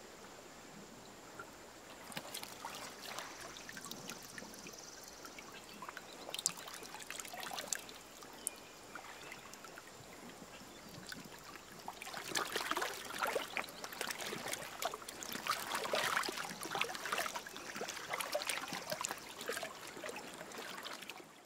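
River water trickling and splashing as people move about in it, turning into louder, denser splashing about twelve seconds in, like someone wading through the water.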